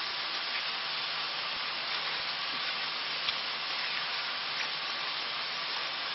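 Mince sizzling as it browns in a hot pan, stirred and scraped with a spatula: a steady frying hiss with scattered small crackles.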